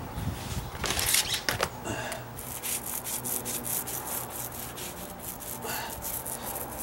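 Mini paint roller being rolled back and forth over a deck stair tread, spreading primer with a rhythmic rubbing swish, several strokes a second.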